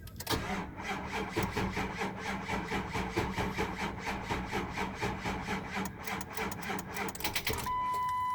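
Starter cranking a 2004 Ford F-250's 6.0L Power Stroke diesel V8 in even rhythmic strokes for about seven seconds without it firing: a crank-no-start. The cranking stops near the end and a steady electronic warning tone sounds, stepping down in pitch.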